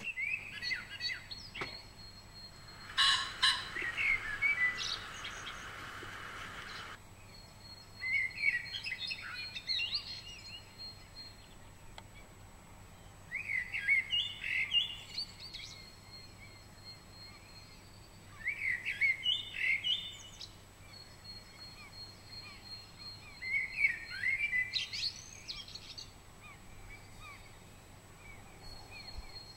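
A male common pheasant gives its loud, harsh territorial crow about three seconds in, followed by a few seconds of noisy rushing. A songbird repeats a short chirping song phrase about every five seconds.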